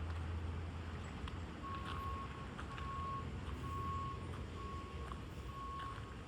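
A vehicle's reversing alarm beeping at one steady pitch about once a second, starting a couple of seconds in, over a low engine or traffic rumble.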